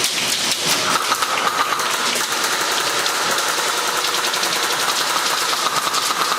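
Airsoft guns firing in a fast, continuous clatter of clicks, with a steady high hum joining about a second in.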